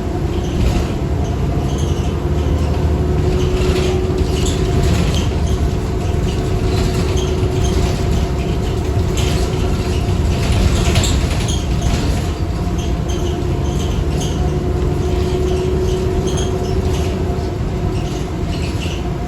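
New Flyer D40LF transit bus heard from inside, running with a steady deep rumble and a held whine, with scattered rattles from the body. The uploader calls this bus one with a bad transmission.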